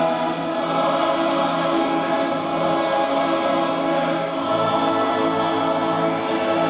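Choral music: a choir singing long held chords, with a lower note coming in about halfway through.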